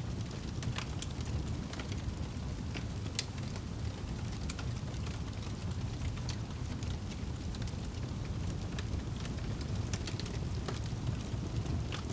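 Wood fire crackling in a fireplace: irregular sharp pops and snaps, a few every second, over a steady low rumble of the burning fire.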